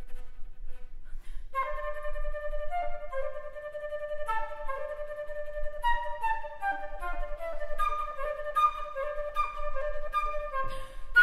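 Solo flute playing. After a sparse first second or so, a low note is held steady while higher notes shift quickly above it.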